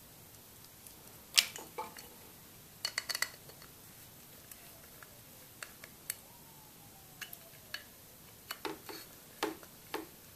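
Scattered clicks and light knocks of a metal two-stroke engine housing and a screwdriver being handled against a metal workbench plate. The loudest click comes about a second and a half in, with a quick run of clicks about three seconds in. A faint falling squeak sounds near the middle.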